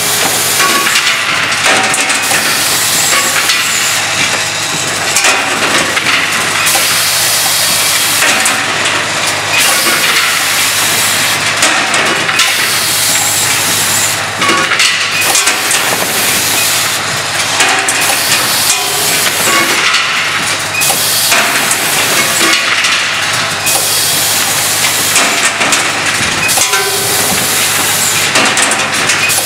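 Automated cap-and-insert assembly machine running: the pneumatic cylinders and grippers on its rotary indexing table hiss out air in repeated bursts, about one every second or so, with light clicks and clatter over a steady low hum.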